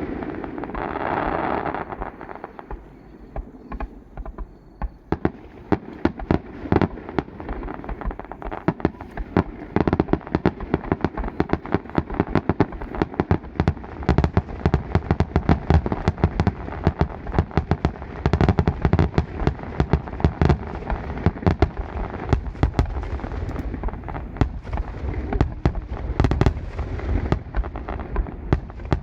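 Fireworks display: a rapid, continuous barrage of aerial shell bursts and crackle, several bangs a second, becoming dense from about five seconds in.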